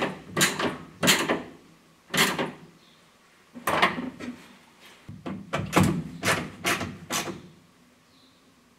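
Hand tools working screws into a plastic car dashboard: a string of short, irregular clicks and knocks of tool, screw and plastic trim, with a pause of about a second partway through.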